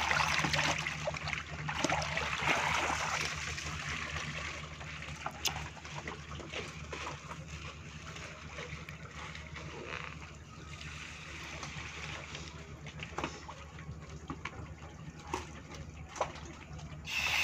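Water splashing and sloshing as a hand net scoops live tilapia out of a net cage, loudest in the first few seconds. Then quieter trickling and dripping with scattered knocks, over a steady low hum.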